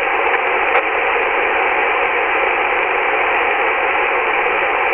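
CB radio receiver hiss: steady static through the radio's speaker with the squelch open, while a weak station is too faint to be heard through it.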